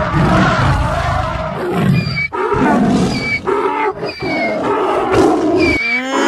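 Animal sound effects: a tiger roaring, then a donkey braying in repeated rising and falling hee-haws. A short, clear, pitched call begins just before the end.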